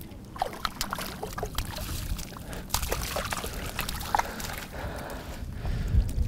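Small brook trout splashing at the lake surface as it is drawn into a landing net, with scattered clicks and knocks of the net and rod being handled.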